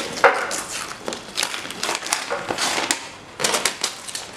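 Gift-wrapping paper being torn and pulled off a box by hand: a run of short, crinkling paper rustles.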